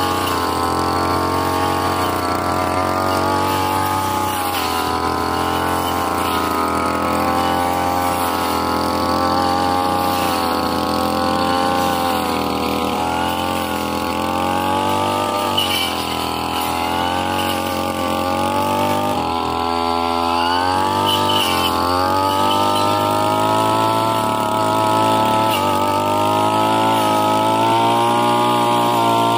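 Brush cutter engine running at high revs while its circular blade cuts through grass and undergrowth. The engine note wavers up and down with the load, dips sharply about twenty seconds in, then climbs back up.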